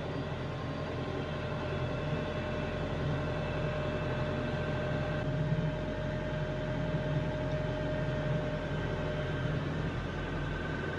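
TYM T574 compact tractor's diesel engine running steadily, with a steady whine over the engine note.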